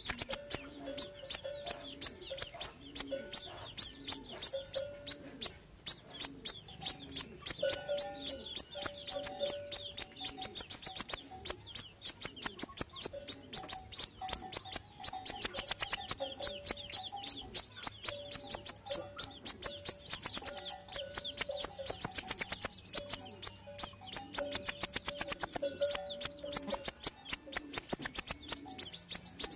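Sunbird call recording played as a lure for wild birds: a fast, unbroken run of sharp, high chips, several a second, with lower steady notes repeating underneath.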